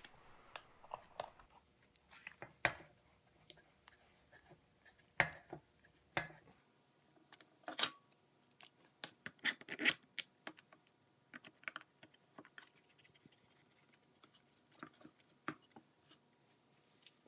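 Clamps being set and tightened on a melamine-strip epoxy mold: scattered clicks, knocks and scrapes, irregularly spaced, with a few louder knocks.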